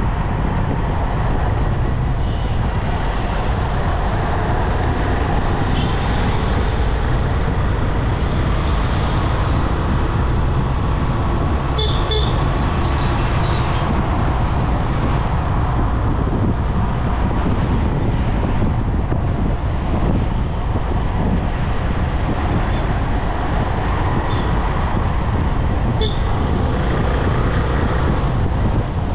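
Steady road noise of a vehicle driving in traffic, a dense engine and tyre rumble, with a few short horn toots, the clearest about twelve seconds in.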